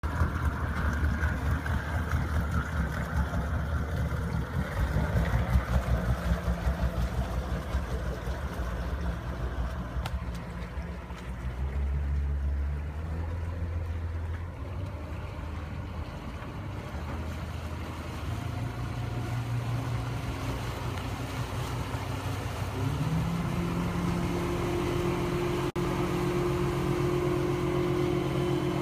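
NX 270 motorboat's engine running under way over a steady rushing noise, its pitch shifting and then stepping up and holding higher about three quarters of the way through as the throttle opens.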